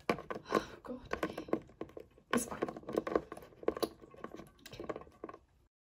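Irregular light clicks and taps of a small plastic Littlest Pet Shop figure being handled and set down on a hard surface. The sound cuts off suddenly near the end.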